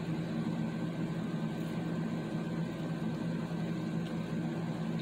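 Steady low machine hum with a few fixed low tones, unchanging throughout.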